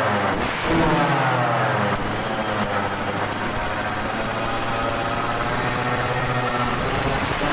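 2018 Yamaha YZ125's two-stroke single-cylinder engine running and being revved. It picks up about a second in, then the pitch slowly rises and falls.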